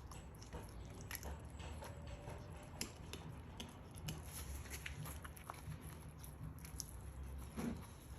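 Fillet knife cutting along a rainbow trout's backbone, giving faint, irregular crunching clicks as the blade goes through the rib bones.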